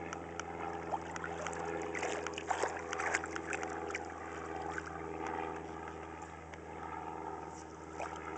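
Steady drone of an airplane's engine, with light splashes of a toddler's feet wading in shallow water.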